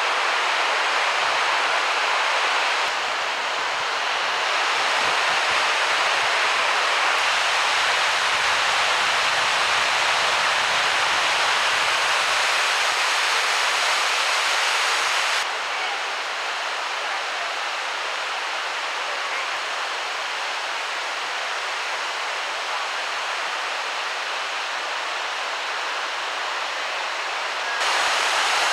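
Mountain river rushing over a low concrete weir and through rocky rapids: a steady hiss of whitewater. It drops a little quieter about three seconds in and again just past halfway, then comes back up near the end.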